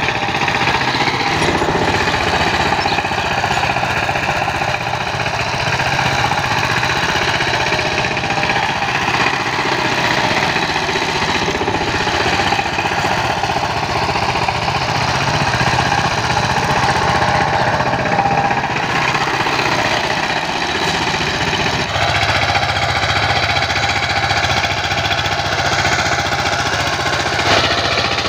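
A 16 hp single-cylinder diesel engine on a two-wheel power tiller runs steadily under load while the tiller's rotary blades work the soil. The tone shifts about 22 seconds in.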